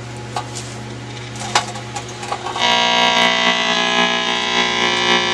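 Firestone Air Chief tube radio humming through its field-coil speaker, with a few sharp clicks from its tuning controls. About two and a half seconds in, a loud, steady whistle of many held tones comes on from the speaker.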